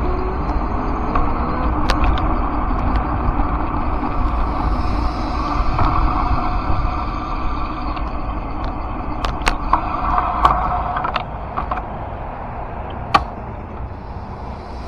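Steady low rumble of a ride along the road, with scattered sharp clicks and rattles. It eases off near the end as the ride comes to a stop.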